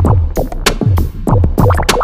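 Electronic background music with a driving beat: deep bass kicks that drop in pitch, about three a second, with sharp hits between them.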